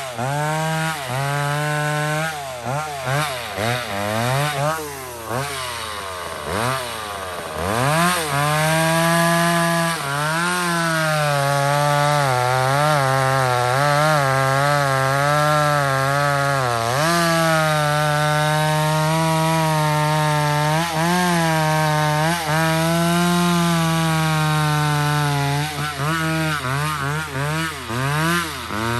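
McCulloch 850 two-stroke chainsaw cutting wood under load. Its revs rise and fall as the chain bites, with one deep drop about six to seven seconds in before it climbs back to a steady high pitch.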